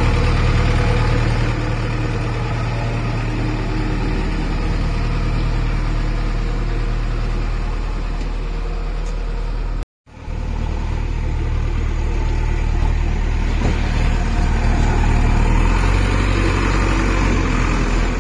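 JCB 3DX backhoe loader's diesel engine running steadily at idle. The sound cuts out for a moment about halfway through, then the engine running resumes.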